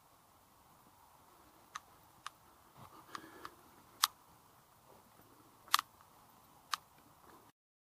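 A handful of sharp, irregular clicks, about seven in all, over a faint steady hiss. The sound cuts off abruptly near the end.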